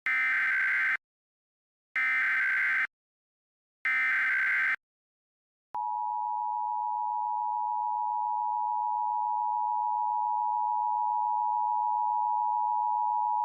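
Emergency Alert System sequence: three short buzzy SAME digital header bursts, each about a second long and about a second apart. These are followed by the two-tone EAS attention signal, a steady pair of pure tones near 1 kHz held for about eight seconds, which announces an alert message.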